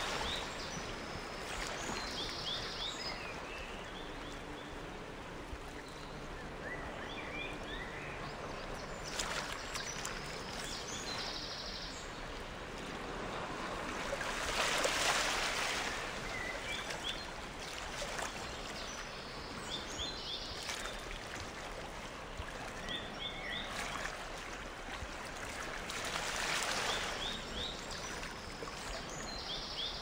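Flowing river water, a steady rush that swells louder a few times, with short high bird chirps and calls scattered over it.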